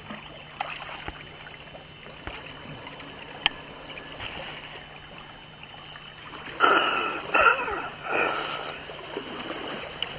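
Sea kayak paddle strokes in calm water: the blades dipping and dripping with gentle trickling and gurgling around the hull, and a few louder splashes about two-thirds of the way through.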